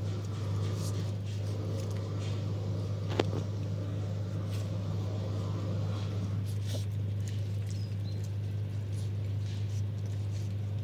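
Shiba Inu puppies eating raw mince from a plate: many small smacking and clicking sounds of mouths, plate and paws, with one sharper knock about three seconds in. A steady low hum runs underneath.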